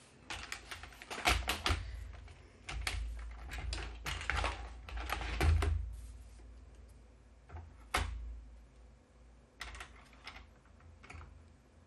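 Plastic paper trimmer being set down and shifted into place on the work mat: a run of clicks and knocks over low thuds, one sharper knock about eight seconds in, then a few lighter clicks.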